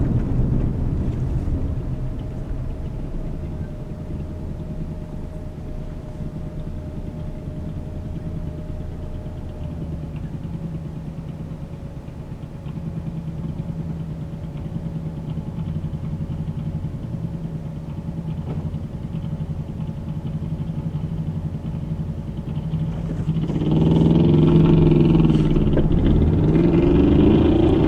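Car driving with a steady low road-and-engine rumble. About 23 seconds in, a louder sound with a wavering, rising-and-falling pitch comes in and continues.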